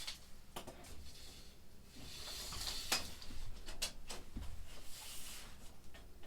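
A sheet of drywall being worked by hand: a few scraping, rustling strokes with several light knocks.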